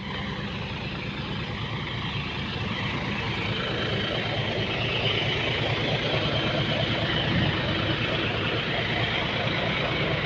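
Heavy diesel truck engine running steadily, gradually getting louder.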